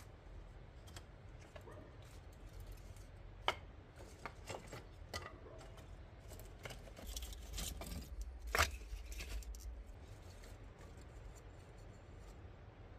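Split kindling sticks being laid onto an ash bed in a brick hearth: dry wood knocking and clattering lightly, a few sharp knocks scattered through, the loudest a little past the middle, with a low rumble under a cluster of knocks.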